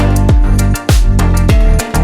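Background music with a heavy electronic beat: loud kick drums with deep falling bass, steady snare or clap hits and sustained synth notes.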